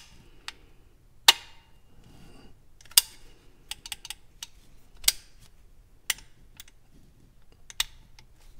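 Sharp metallic clicks from an AR-15 lower receiver's fire-control group being function-checked by hand: the hammer snapping forward on trigger pulls, being pushed back to cock, and the safety selector clicking between safe and fire. About six loud clicks one to two seconds apart, with lighter clicks between them.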